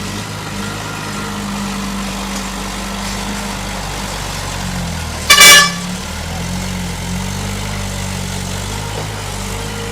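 A heavy earth-moving vehicle's engine running steadily, with one short, loud, high-pitched horn toot about five seconds in.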